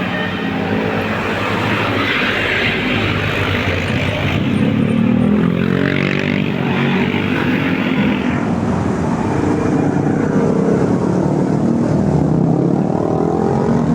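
Heavy bus engine running past, its pitch rising and falling, with a rushing noise that stops about eight seconds in.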